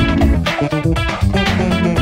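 Background music with plucked guitar and bass and a steady beat.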